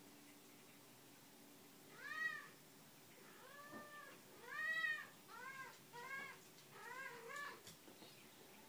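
Calico cat meowing about seven times in a row while carrying a stuffed toy in its mouth. Each call rises then falls in pitch, and the loudest comes about midway.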